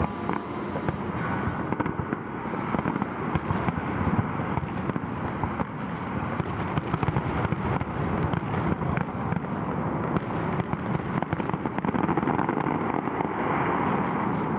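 Fireworks display: aerial shells bursting and crackling in quick succession, a dense, continuous barrage of bangs and crackle.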